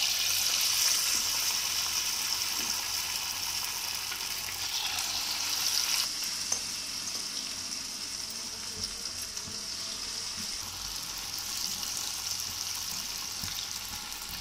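Battered chicken pakora pieces deep-frying in hot oil in a kadai, a steady sizzle that is loudest in the first few seconds and eases a little after about six seconds.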